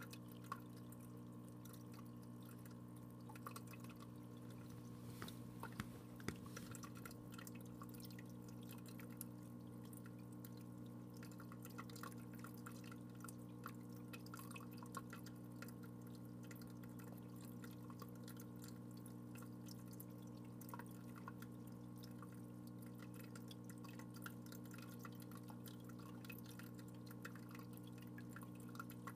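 Faint steady low hum with many small scattered clicks and drips of water; a few sharper clicks stand out about half a second in and twice around six seconds in.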